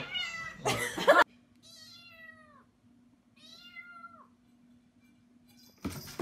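A small kitten meowing twice, two high, thin calls that each drop in pitch as they end. Before them, a loud burst of sound cuts off about a second in, and a loud sudden noise starts near the end.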